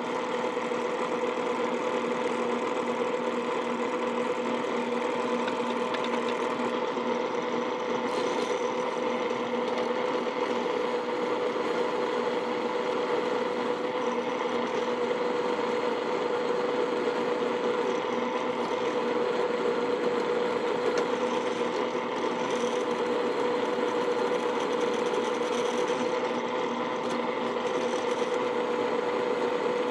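Drill press running with a steady hum, spindle speed turned up for a small drill bit that is drilling into a blind dowel pin.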